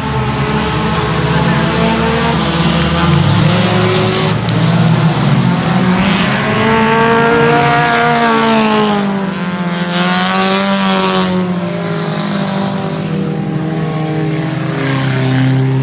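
Engines of several dirt-track race cars running around the oval. Their pitch rises and falls, most sharply about halfway through as one car passes close.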